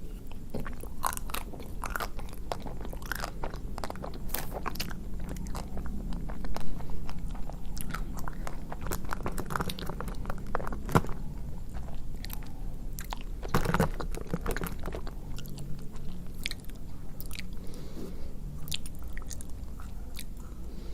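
Close-miked chewing and biting of a chocolate-coated ice cream bar, with many small crunches and crackles of the chocolate shell scattered irregularly.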